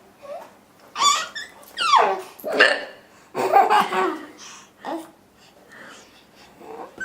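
A woman hiccuping and a four-month-old baby laughing, in about five short bursts over the first five seconds.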